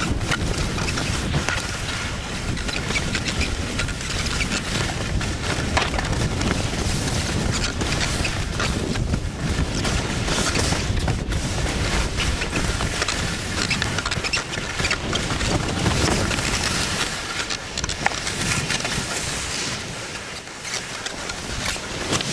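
Wind rushing over the microphone while skiing downhill, with skis scraping and hissing on the snow.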